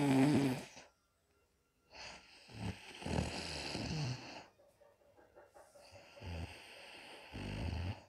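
A woman snoring in deep sleep: loud snores on each breath with pauses between, one ending just under a second in, a long one from about two seconds in, and another starting about six seconds in.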